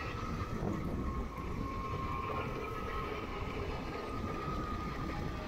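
Electric bike motor whining at a steady pitch while riding, over a constant rush of wind and road noise.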